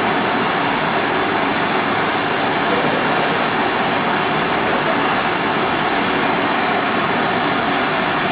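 Bench gas torch burning with a steady, constant rushing noise from its flame.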